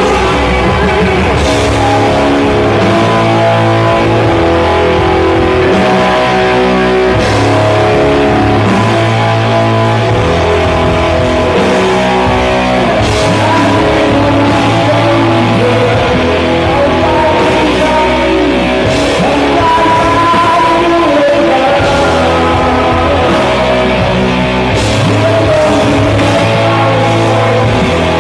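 Rock band playing live at full volume: electric guitars over bass and drums, running on without a break.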